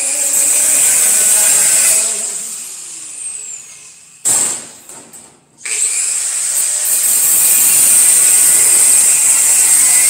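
Angle grinder with a thin cut-off disc cutting sheet steel: it runs high-pitched for about two seconds, winds down with a falling whine, gives a short burst about four seconds in, then starts again and runs steadily through the cut.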